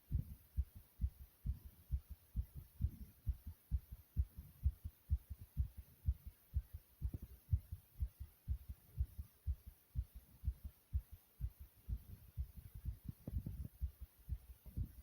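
A person's heart beating fast, heard from inside the chest: a quick, steady run of short, low thuds.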